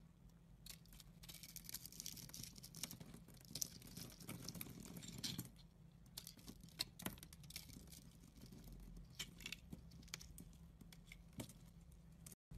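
Faint rustling with scattered small clicks and taps, the sound dropping out completely for a moment near the end.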